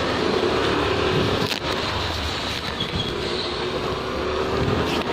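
Steady street noise heard while riding a bicycle: a rush of air and traffic, with the low hum of a motor vehicle's engine running nearby.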